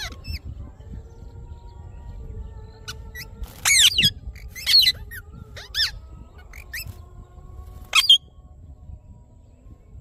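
Indian ringneck parakeets giving a series of short, high-pitched squawks a second or more apart, the loudest a double call about four seconds in.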